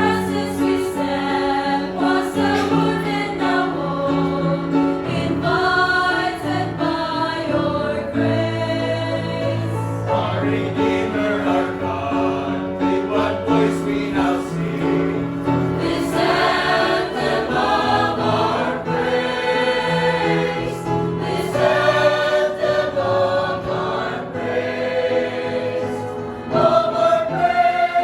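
Church choir singing a hymn, with sustained sung phrases.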